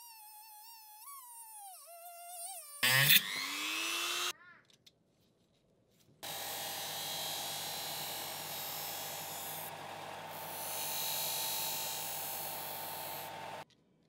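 Handheld rotary tool with a cut-off wheel cutting through a steel pin, its high whine dipping and wavering under load, then a louder burst with rising pitch before it stops about four seconds in. After a short pause, a disc sander grinds the steel knife blade's edge bevel, a steady grinding sound over the motor's hum that cuts off suddenly near the end.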